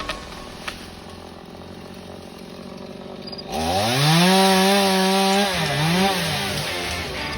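Chainsaw running low, then throttled up sharply about three and a half seconds in and held at high revs. Its pitch dips briefly about two seconds later, as if bogging under load in the wood.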